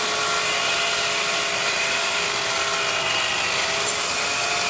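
Electric pipe-threading machine running steadily while threading gas pipe, its motor giving a constant whine over a broad noise.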